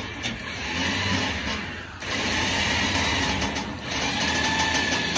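Winch motor running under load, pulling a log on a log trailer: a steady mechanical whir that pauses briefly about two seconds in, then runs on with a faint whine.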